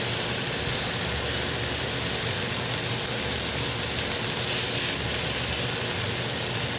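Chicken breasts sizzling steadily in a hot frying pan, the searing hiss raised by lime juice just poured in.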